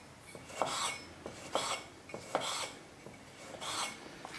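Kitchen knife slicing through a tomato onto a wooden cutting board: four rasping strokes about a second apart, each with a sharp click of the blade.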